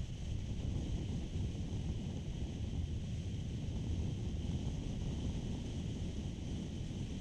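Steady wind rumble on a motorcycle-mounted action camera's microphone while riding, a low even buffeting with a faint hiss above it.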